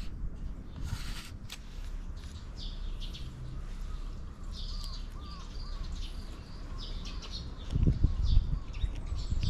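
Small birds chirping and twittering in quick, repeated short calls over a steady low rumble. A few stronger low thumps come near the end.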